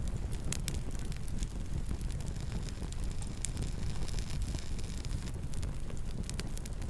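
Campfire burning: a steady low rumble of the flames with frequent sharp crackles and pops from the burning wood.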